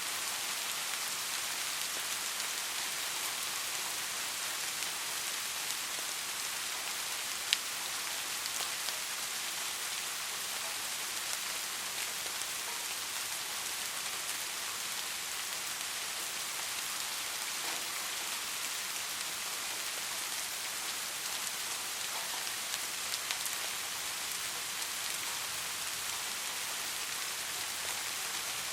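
Soft rain falling steadily: an even hiss with scattered individual drop ticks, and one sharper drop landing about a quarter of the way in.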